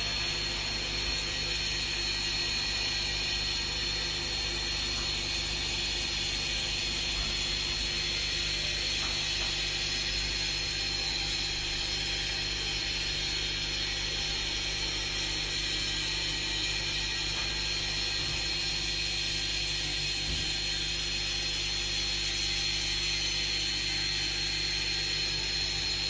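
Spit roast gear motor running steadily under load with a constant high whine and gear hum, its turning mandrel winding a 6 mm solid stainless steel bar into coils.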